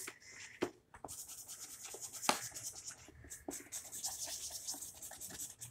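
Colouring on paper with a colouring tool: quick back-and-forth scratching strokes, broken by a few short taps.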